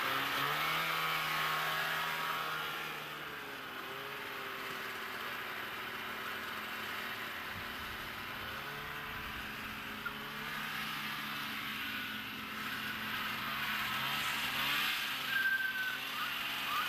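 Snowmobile engine pulling away with its pitch rising and falling as the throttle changes, running fainter in the distance through the middle, and growing louder again as it comes back near the end.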